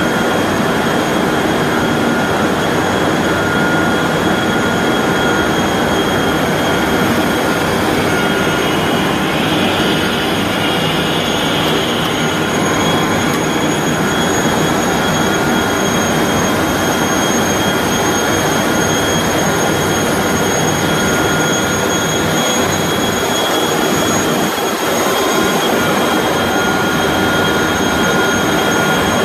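3200 mm copy-paper machine running: a loud, steady machine noise with several high-pitched whine tones held over it.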